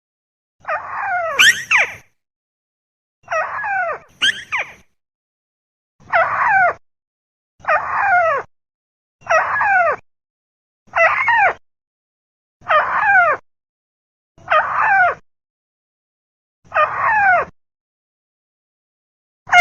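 Crake (burung tikusan) call played as a bird lure: a loud, harsh, descending call repeated at an even pace, about one call every two seconds.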